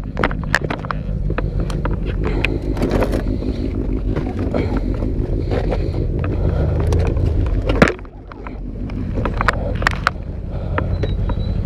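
Clicks and scrapes from a crashed motorcycle lying on its side on asphalt being handled, over a steady low rumble. A sharp, loud knock comes about eight seconds in, after which the rumble drops briefly before building again.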